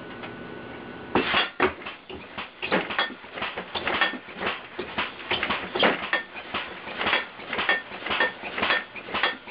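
Air-compressor-powered, computer-controlled alarm rig going off: rapid, irregular metallic clanging, several strikes a second, beginning about a second in.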